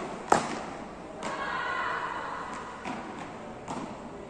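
Beach tennis paddles hitting the ball in a rally: four sharp, echoing knocks, the first the loudest. A voice calls out for about a second after the second hit.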